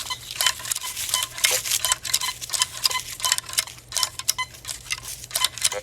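Teknetics Patriot metal detector in three-tone mode, its search coil swept back and forth over a silver quarter 10 inches deep. The coil scratches and rustles against grass and dirt, and short tones from the detector come and go with each pass.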